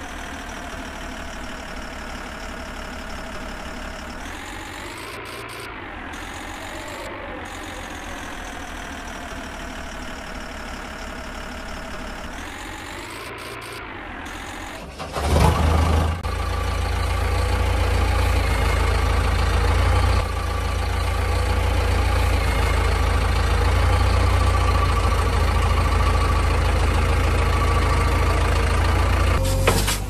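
A vehicle engine running at idle, rising and falling in pitch a couple of times. About halfway through it switches abruptly to a louder, deeper engine sound running steadily with a heavy low rumble.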